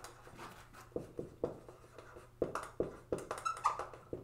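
Marker pen writing on a whiteboard: a run of short scratchy strokes, with a brief high squeak from the marker tip about three and a half seconds in.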